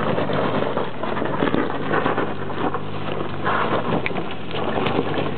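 SUV engine pulling under load as it climbs a steep, loose rocky trail, with its tyres crunching over gravel and stones.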